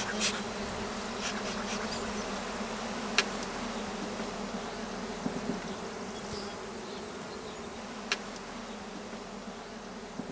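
Honeybees buzzing in a steady hum over an open hive, with a few puffs from a bee smoker's bellows at the start and two sharp knocks about three and eight seconds in.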